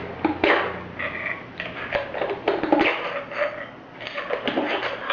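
Baffles of a Sirocco SM11 suppressor being slid and pushed back into its tube one after another during reassembly: a series of irregular light knocks and clicks with handling rubs.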